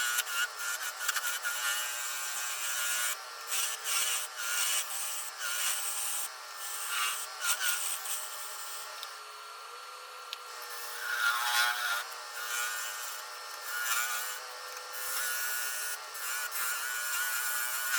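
A woodworking machine running with a steady whine, while a tool scrapes and rubs against wood in irregular strokes that come and go.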